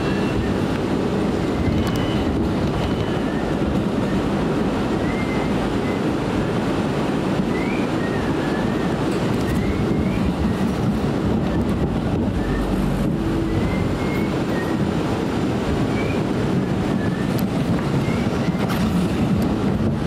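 Inside an R179 subway car running at speed on open track: a steady rumble of wheels and running gear, with brief faint high chirps now and then.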